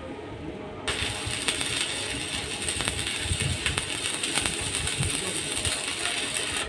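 Metalworking noise: a steady hiss full of sharp metallic clicks and clinks, the hiss coming in about a second in.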